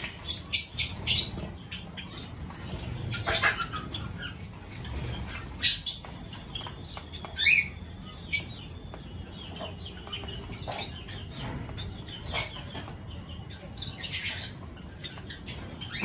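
Small aviary birds, Java sparrows and finches, chirping in short, scattered calls with bursts of wing fluttering.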